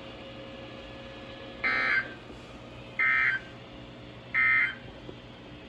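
Emergency Alert System end-of-message data tones: three short bursts of digital warbling about a second and a half apart, over a faint steady hum. They signal the end of the severe thunderstorm warning just broadcast.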